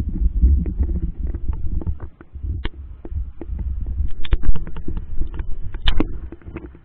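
Muffled low rumble of water moving around an underwater camera housing as the rig is lowered on a line, with irregular clicks and knocks from the rig, the loudest about four to six seconds in.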